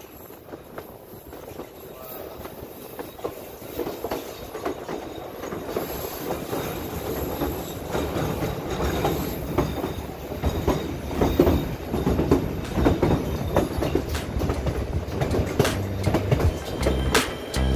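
Narrow-gauge White Pass & Yukon Route passenger train rolling around a curve, its wheels clacking and knocking on the rails with some wheel squeal. It grows steadily louder.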